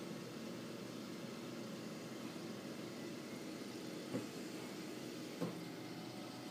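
Aquarium aeration running steadily: an air pump's hum with the hiss of a bubble curtain rising through the water. Two brief soft knocks come about four and five and a half seconds in.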